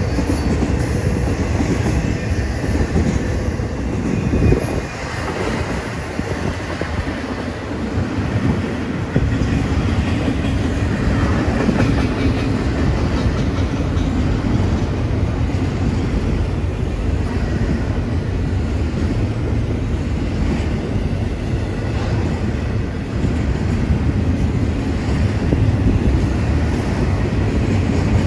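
Intermodal freight train cars rolling past close by: the steady, low-heavy noise of steel wheels running on the rails. The noise dips for a few seconds around five to nine seconds in, then holds steady again.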